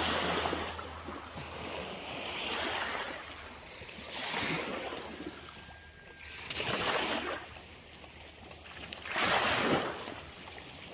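Small waves washing in, a rush of water that swells and fades about every two to two and a half seconds.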